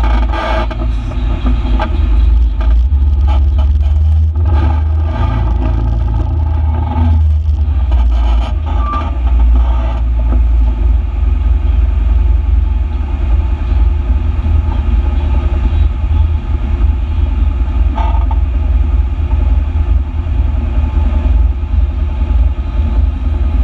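Vehicle engine running with a steady low rumble, with knocks and rattles over the first several seconds as it rolls over the rough dirt road. It then settles into a steadier rumble once the vehicle has stopped and sits idling.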